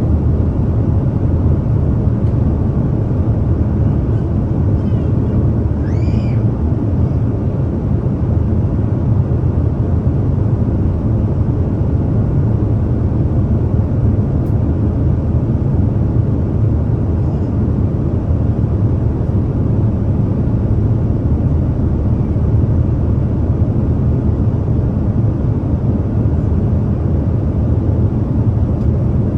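Steady cabin noise of an airliner in flight: a constant low rumble of engines and airflow heard from a window seat.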